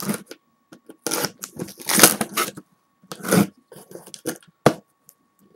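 A mailed package being torn open by hand: several rough tearing and rustling bursts, the loudest about two seconds in, and one sharp click about three-quarters through.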